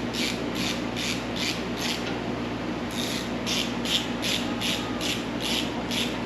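Rhythmic back-and-forth rasping strokes from a tool worked by hand against a surface, about two and a half strokes a second, with a brief pause about two seconds in. A steady low hum runs underneath.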